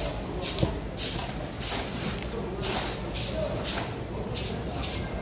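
A knife working with a steady back-and-forth rhythm, each stroke a bright scraping hiss, about two strokes a second.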